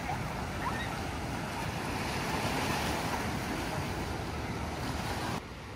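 Steady rushing noise of wind and ocean waves, with wind buffeting the microphone; the level drops suddenly about five seconds in.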